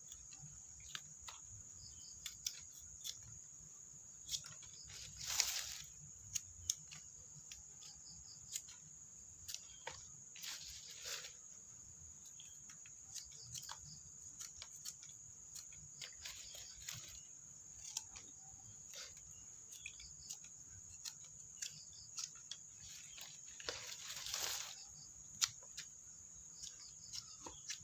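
Steady high-pitched chirring of crickets, with scattered sharp clicks and a few brief rustling noises.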